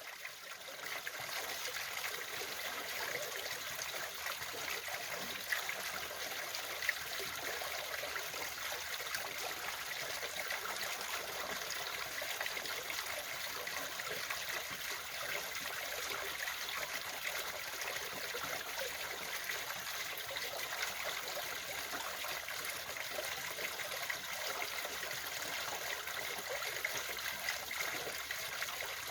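Small garden waterfall, water trickling and splashing in a steady rush, with two brief sharp ticks a few seconds in.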